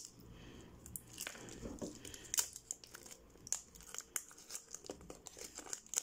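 Thin plastic wrapping on a Flush Force toy toilet crinkling and tearing as it is pulled off by hand. Irregular soft crackles, with a few sharper snaps.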